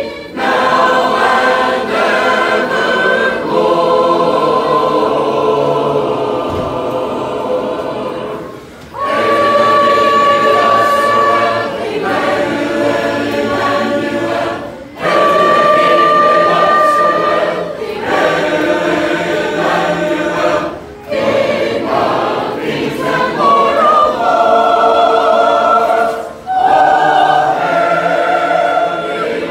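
A large congregation of men, women and children singing a gospel hymn together, many voices at once, in long phrases with brief pauses between them.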